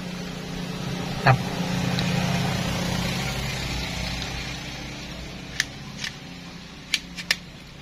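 Black plastic camera-mount bracket pieces being handled and fitted together: one sharp knock about a second in, then a few short clicks near the end, over a steady low hum that swells and fades midway.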